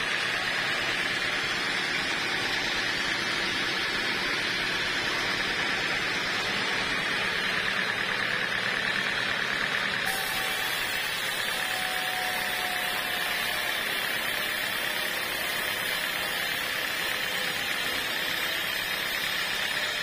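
Band sawmill running, its blade cutting through dry teak beams: a steady sawing hiss with a constant high tone over it.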